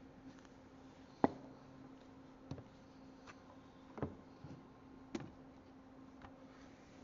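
A few light clicks and knocks, about four spread through, the sharpest a little over a second in, over a faint steady hum.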